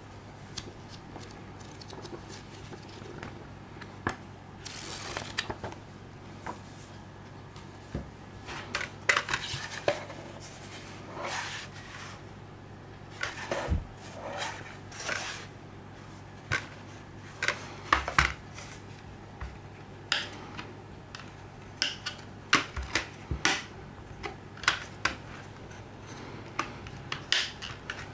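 Gloved hands handling a paper booklet and a plastic Blu-ray case: pages rustling and flicking, with scattered sharp clicks and taps, over a low steady hum.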